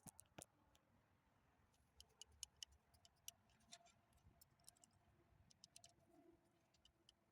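Faint clicking of a hand ratchet in short runs, as bolts are run down on a transmission's rear cover.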